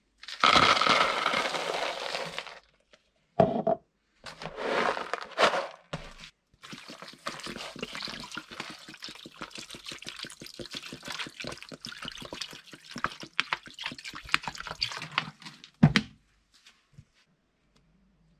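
Dry corn-cake meal tipped from a plastic jug into a plastic bowl with a brief rushing pour. Then water is poured from a plastic bottle onto the meal, glugging rapidly for about nine seconds, with a single knock at the end.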